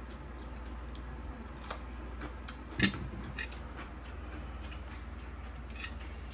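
Eating at a table: a few scattered crisp clicks and crunches from chewing raw cucumber and a knife and fork touching a plate, the sharpest click about three seconds in, over a steady low hum.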